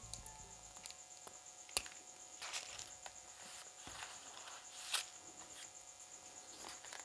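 Faint snips, clicks and taps of plastic spoons as a spoon handle is cut off with scissors and the red-painted spoon bowls are handled and set down on paper. The sharpest clicks come about two seconds and five seconds in, over a faint steady high-pitched trill.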